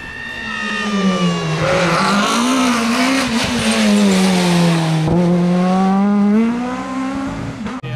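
Rally car engine at high revs as the car comes up and passes close by, its pitch rising and falling with the throttle through the bends and dropping as it goes past, loudest in the middle.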